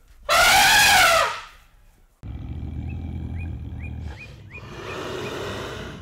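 African elephant trumpeting once, a loud call of about a second that rises and then falls in pitch. After a short gap, quieter outdoor background with a run of short bird chirps, and a breathy rasp near the end.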